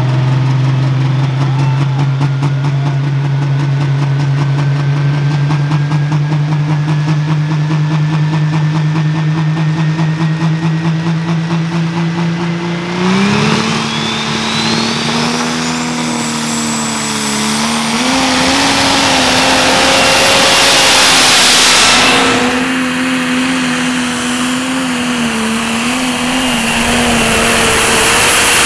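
Case IH Magnum pro stock pulling tractor's turbocharged diesel engine held at the start line with a pulsing note that slowly climbs in pitch, a turbo whine rising over it. About 13 seconds in it opens up and launches, running hard at high revs under full load as it pulls the sled.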